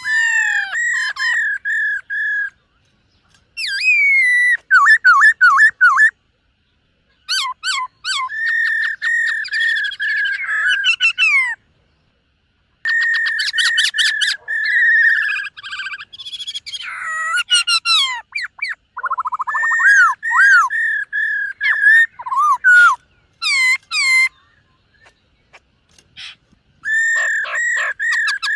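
Black-throated laughingthrush singing loud, clear whistled phrases of quick repeated and sliding notes, in bouts of a few seconds broken by short pauses.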